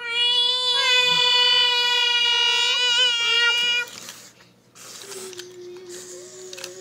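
A child's voice holding one long, loud, steady note for nearly four seconds, then a softer, lower held note near the end.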